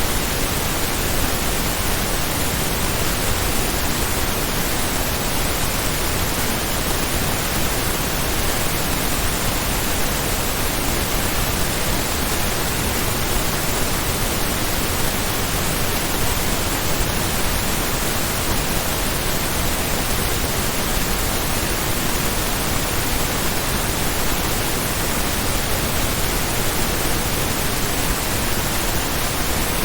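Pink noise test signal in true stereo, normalised to −14 LUFS with −1 dB peaks: a steady, even hiss across the whole range that never changes.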